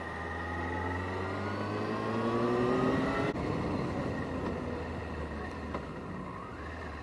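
Motorcycle engine accelerating, its pitch rising for about three seconds, then dropping suddenly at a gear change and running on more steadily.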